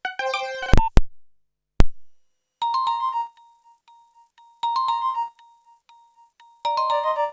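Nokia 1112 ringtones played back and recorded directly from the phone's earphone jack. A run of electronic notes ends, there are two sharp clicks about a second apart, and then a new ringtone starts: a short phrase of electronic notes repeating every two seconds, with a soft single beep sounding between the phrases.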